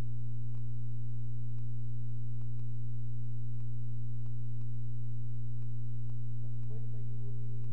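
Loud steady electrical hum from the microphone and recording chain: a low buzz near 120 Hz with a ladder of higher overtones, holding level without change. Faint clicks tick through it about twice a second.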